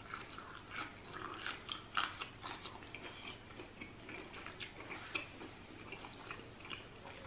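Chewing a cooked asparagus spear just bitten off: faint, irregular crunches and small mouth clicks.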